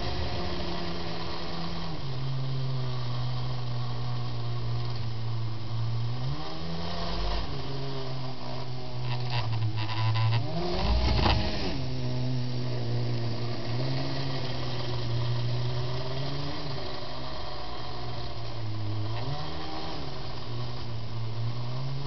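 Kyosho Blizzard RC snow groomer driving, its motor hum steady but rising and falling in pitch several times as the throttle changes. About ten seconds in, a louder stretch of clattering rattles over the hum.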